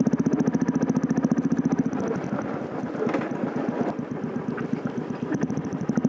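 Royal Enfield single-cylinder engine running on the move through an aftermarket Dolphin silencer: a fast, even exhaust beat, weaker in the middle and strong again near the end.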